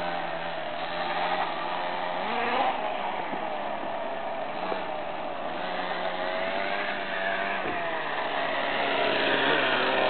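Radio-controlled motorbike's motor running, its pitch rising and falling as the throttle is worked, with a sharp rise about two seconds in and a drop about eight seconds in.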